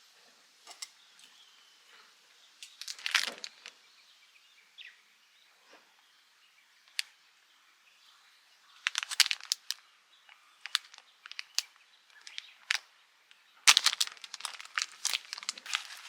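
Irregular bursts of crinkling and rustling handling noise, in short clusters with quiet gaps between them, busiest and loudest in the last few seconds.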